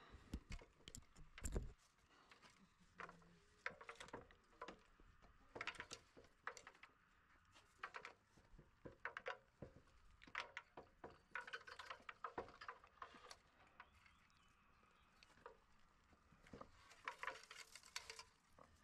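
Faint scattered taps, knocks and rustles of someone climbing an extension ladder, with hands and shoes on its ribbed aluminium rungs and a heavier knock about a second and a half in.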